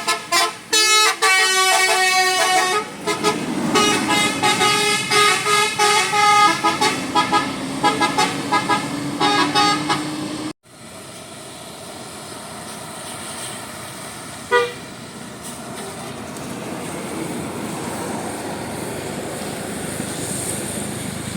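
Bus telolet musical horn playing a quick tune of short notes that jump in pitch for about ten seconds. After an abrupt cut there is steady vehicle engine and road noise that slowly grows louder, with one short horn toot in the middle.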